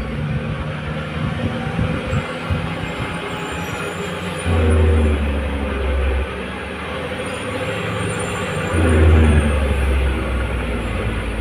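Diesel engine of a heavily loaded FAW tractor-trailer running at low speed with a steady low drone, surging louder twice under throttle as it works around a steep hairpin with its load of concrete piles.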